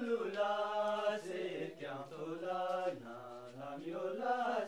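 A chanting voice in long held notes that slide slowly between pitches, used as background music.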